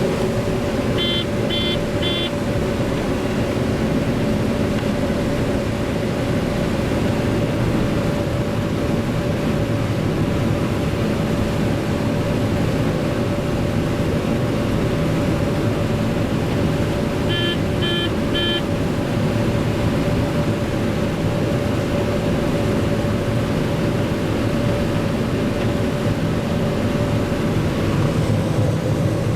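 John Deere 9500 combine running steadily under load while harvesting corn, a constant drone with a steady whine. Twice, a quick run of three short high beeps sounds over it.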